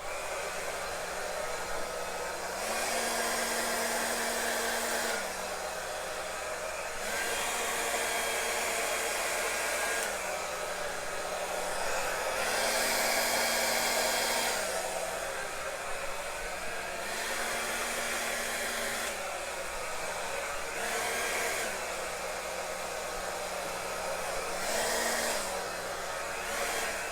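Blow dryer running steadily, blowing wet acrylic paint across a canvas. Its motor pitch steps up and back down several times, the rush of air growing louder with each step.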